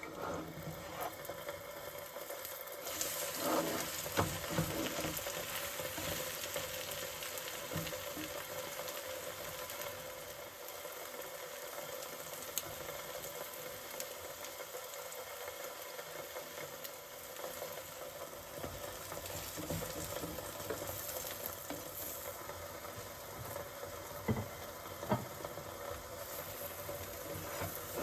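Food frying in oil in a pan, sizzling and crackling steadily. The sizzle grows louder about three seconds in, and a utensil knocks against the pan a few times.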